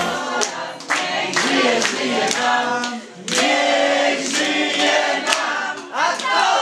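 A group of people singing together and clapping along in time, about two claps a second, with a short break in the singing about three seconds in.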